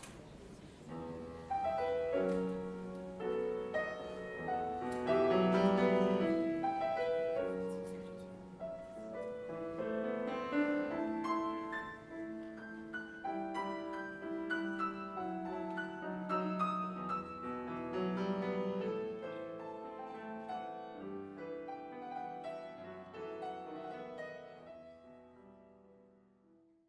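Solo piano playing a classical piece, notes and chords in a quick, changing pattern. The playing starts about a second in and fades away near the end.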